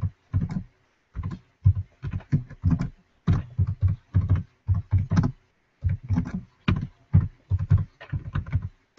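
Typing on a computer keyboard: an irregular run of keystrokes, several a second, broken by brief pauses.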